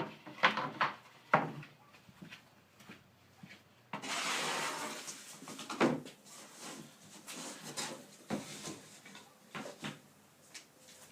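Plywood pieces being handled and set against each other on a workbench: a few sharp wooden knocks, a stretch of rubbing or sliding about four seconds in, then more scattered knocks.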